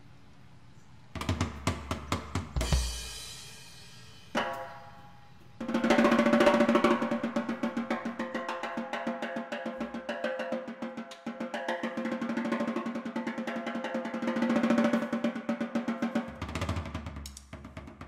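Soundtrack music on drums and percussion: a sparse beat starting about a second in, then from about five seconds in a fast, dense drum pattern over a steady held drone, thinning out near the end.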